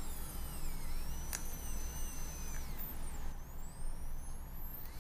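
Dental handpiece whining at high pitch, its pitch sliding down and back up several times while it cleans adhesive flash from around a ceramic orthodontic bracket before debonding; a single sharp click about a second and a half in.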